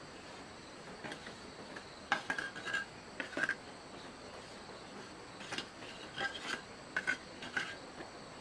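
Irregular short clinks and scrapes in several clusters, some with a brief ringing note, like hard objects knocked and rubbed together. A faint, steady, high insect drone runs underneath.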